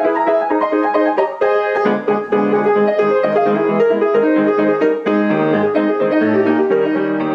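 Intro music led by piano, a lively run of notes with a bass line entering about two seconds in.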